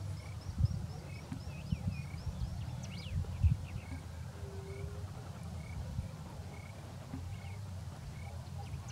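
Chorus of Argentine common toads (Rhinella arenarum) calling in breeding season, a low, pulsing drone throughout. Repeated short high chirps sound above it, and two brief low knocks come about half a second and three and a half seconds in.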